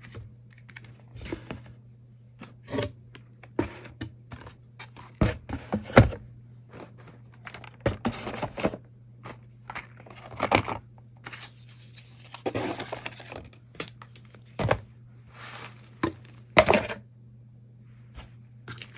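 Small boxed products being set down into a cardboard shipping box one after another: irregular knocks and scrapes of cardboard on cardboard, with short rustles of packaging in between.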